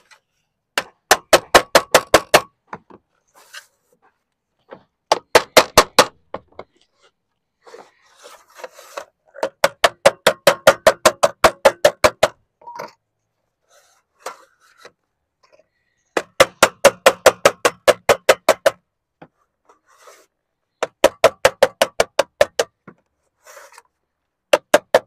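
Lead dresser beating sheet lead in quick runs of blows, about seven a second, with short pauses between runs: the lead drip edge of a dormer top being dressed down and turned round under a copper strip.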